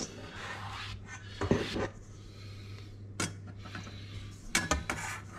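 Stainless steel mixing bowl being handled and moved on a counter, giving a few sharp metallic knocks and clinks, with a cluster of them near the end.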